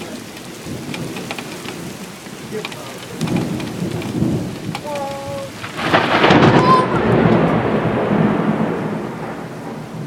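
Heavy rain falling through a thunderstorm, with a low rumble of thunder about three seconds in, then a loud crackling thunderclap about six seconds in that rolls on and fades away over several seconds.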